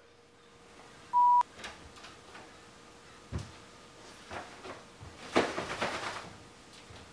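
A short, steady electronic beep about a second in, then a few faint knocks as a door opens, and near the end a louder rustle of a man walking in and handling a closed umbrella.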